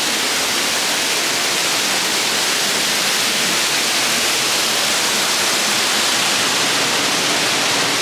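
Waterfall pouring down close by, heard from the rock grotto behind the falling water: a loud, steady rush of splashing water with no change.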